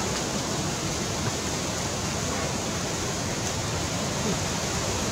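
Steady, even hiss of background noise, with no calls or distinct sounds standing out.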